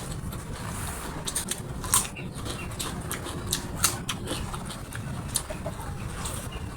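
Close-up eating sounds: chewing, with irregular wet mouth clicks and smacks, the sharpest about two and four seconds in, over a steady low hum.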